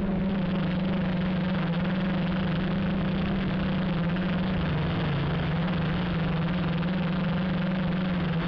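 Q450 quadcopter's electric motors and propellers buzzing steadily in flight, picked up on the airframe itself as a strong low hum. The pitch sags slightly about five seconds in, then comes back up.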